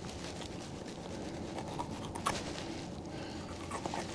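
Faint soft clicks and ticks from a small knife and hands slitting open the belly of a landlocked coho salmon, a cluster about two seconds in and more near the end, over a steady low background.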